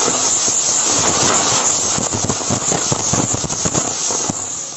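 A butterfly firecracker fixed to a fidget spinner burning: a loud, steady hiss of spraying sparks, with a dense crackle of small pops from about two seconds in, easing off slightly near the end.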